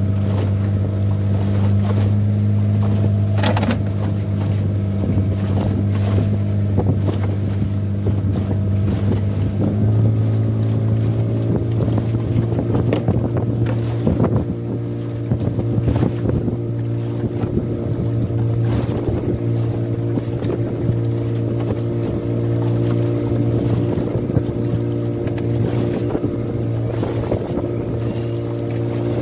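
A 15 hp outboard motor running steadily, pushing a small boat through the sea; its pitch steps up a little about ten seconds in. Scattered knocks of the hull on the waves and wind noise on the microphone come through over it.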